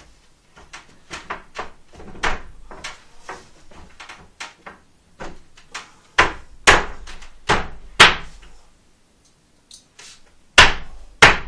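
Wooden flat-pack bunk bed parts knocking and thudding as they are handled and set down, in irregular knocks: light ones at first, then a cluster of loud thuds past the middle and two more near the end.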